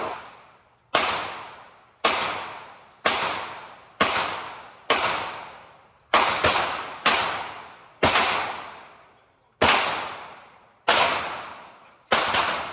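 A firearm fired about a dozen times at a steady pace of roughly one shot a second, each shot ringing out and dying away over about a second; near the end two shots come very close together.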